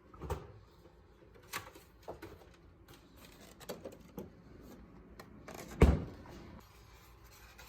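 Scattered knocks and clicks of kitchen utensils and containers being handled, about six in all, with the loudest knock about six seconds in.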